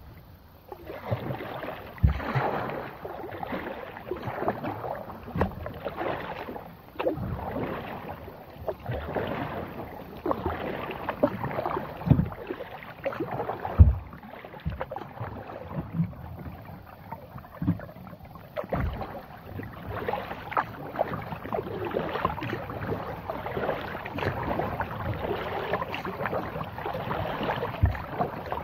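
Kayak paddle strokes: the blades dipping and splashing in calm water again and again, with a few sharp low thumps, the loudest about halfway through.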